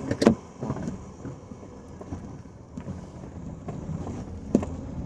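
Steady low rumble of a car heard from inside the cabin, with a sharp knock just after the start and another near the end.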